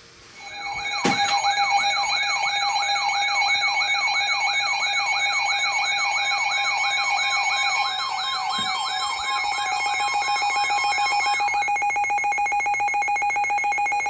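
Several NOAA weather alert radios sounding their alarms together for a severe thunderstorm warning. A fast warbling siren tone, about three sweeps a second, plays over steady tones. The warbling stops a couple of seconds before the end, leaving a steady tone.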